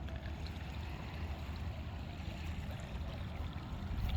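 Steady rush of river water flowing at the river mouth, under an uneven low rumble.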